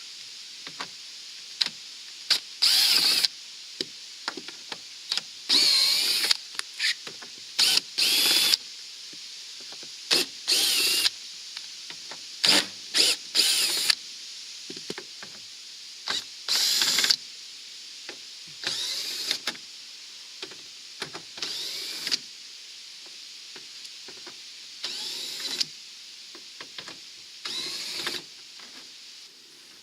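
Cordless drill-driver running in short bursts, about a dozen times, its motor whine bending in pitch, as it backs out the screws holding the RV rooftop air conditioner's cover.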